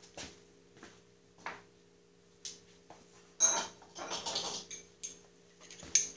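Metal hand tools clinking and rattling as they are handled: a scattered run of light clicks, with a louder stretch of clatter about three and a half seconds in. A faint steady hum runs beneath.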